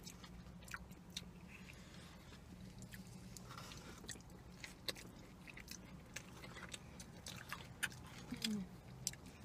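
Two people chewing and biting food close to the microphone: faint, scattered wet mouth clicks and smacks over a steady low hum.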